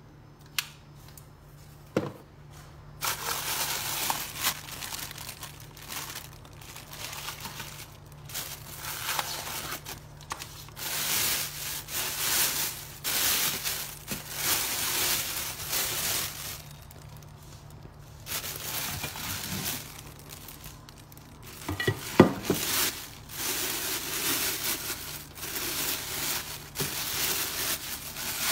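Plastic wrapping crinkling and rustling in repeated bursts as it is handled and pulled off a pressure cooker's inner pot. There is a sharp click about two seconds in and a short cluster of knocks a little past the middle.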